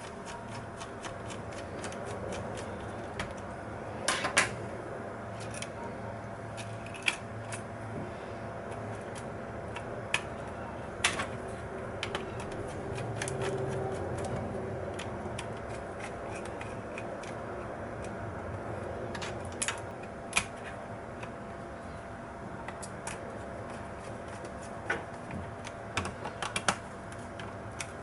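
Sparse sharp clicks and taps from handling a laptop, a few every several seconds with a small cluster near the end, over a steady low hum.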